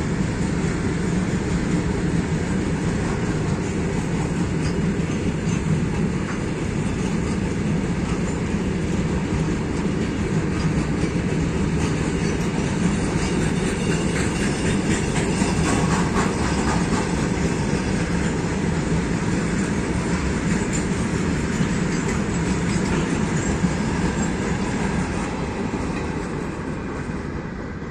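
Freight wagons of a long goods train rolling past: a steady rumble with clicking wheels. The rumble fades near the end as the brake van at the tail goes by.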